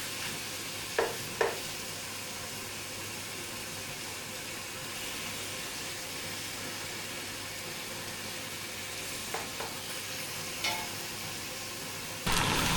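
Chicken pieces sizzling steadily as they brown in a pan of caramelised brown sugar, with a few short sharp knocks, two about a second in and a few more near ten seconds.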